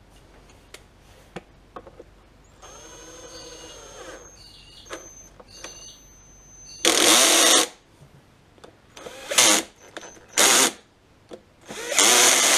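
Cordless drill-driver running on screws: a slower whirr for about a second and a half near three seconds in, then four loud, short full-speed bursts in the second half, with small clicks of handling between.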